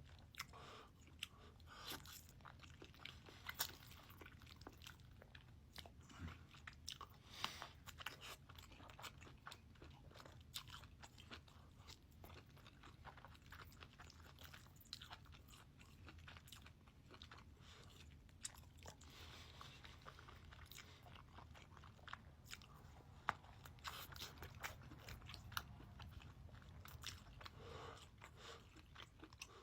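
Close-miked eating: soft chewing and biting, with many short crunches and mouth clicks.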